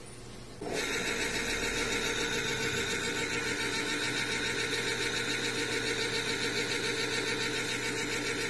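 Kenwood electric can opener's motor switching on about half a second in and running steadily, turning the can against the cutter wheel as it cuts around the lid. A whirring hum with a fast, even pulse.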